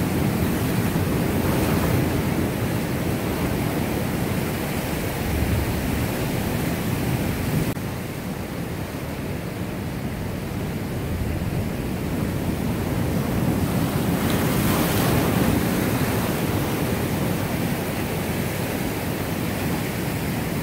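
Ocean surf breaking and washing over shoreline rocks in a steady rush, with wind buffeting the microphone.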